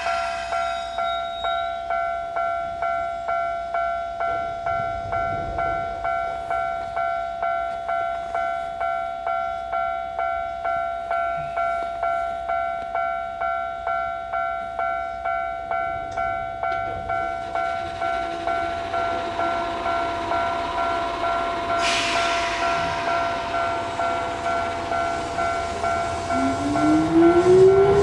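Railway level-crossing warning bell ringing in an even, ringing clang of about two strikes a second. Over the last seconds a Keisei electric commuter train pulls away from the station toward the crossing, its motor whine rising in pitch as it accelerates.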